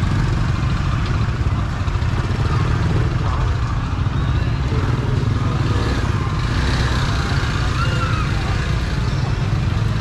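Busy street-market ambience: a steady low rumble of motorbike and other vehicle engines, with voices of people mixed in.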